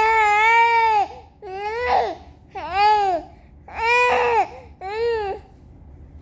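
A baby making a string of high-pitched wailing sounds: one long, level wail, then four shorter ones that rise and fall in pitch.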